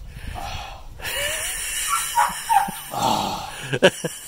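A man panting and blowing hard through an open mouth, with a few short groans, from the burn of a raw Trinidad Scorpion chili pepper. A sharp knock comes near the end.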